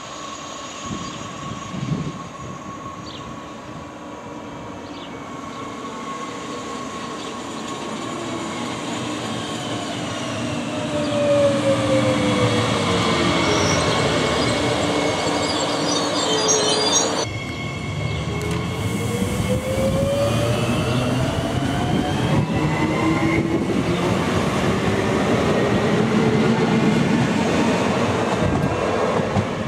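Regio 2N electric multiple unit Z 55629/30 passing close by: its traction motors whine, falling in pitch as it slows into the station with some high squealing. After a cut, the whine climbs steadily in pitch as the train picks up speed, over running rail noise.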